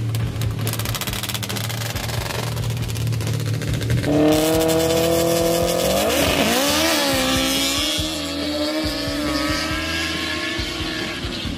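Sand drag racer's engine running low at the line, then at full throttle from about four seconds in, its pitch rising, dipping and rising again before holding a high steady note that slowly fades.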